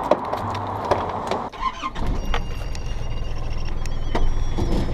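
Clicks and clunks of getting into a ute, then its engine starts about two seconds in and runs at idle with a steady low rumble. A few short high tones sound over the idle.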